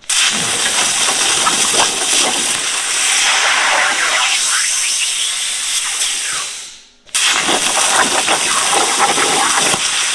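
Plasma torch of a Koike ShopPro CNC plasma table firing and cutting steel plate: a loud, harsh hiss that starts abruptly, dies away about six and a half seconds in, and starts again abruptly just after seven seconds.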